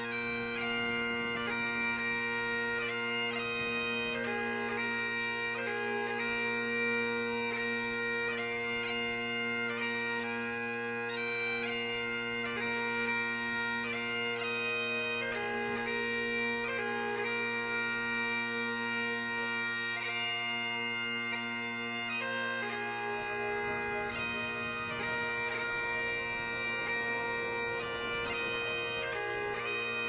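Bagpipe music: a steady drone held underneath while the chanter plays a melody moving from note to note.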